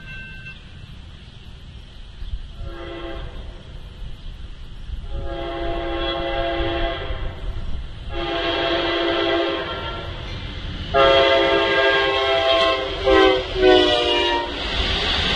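Amtrak GE P42DC locomotive's air horn sounding a series of blasts as the train approaches: a short toot, three long blasts, then shorter blasts that drop slightly in pitch as it passes. Near the end comes the rolling noise of the passenger cars going by.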